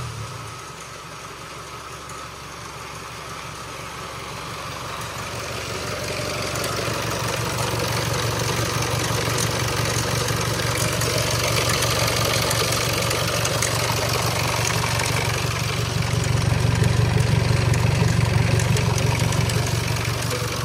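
Range Rover Evoque's Ingenium four-cylinder diesel idling steadily with a timing-chain rattle, which the mechanics put down to a slightly stretched timing chain. It grows louder over the first several seconds.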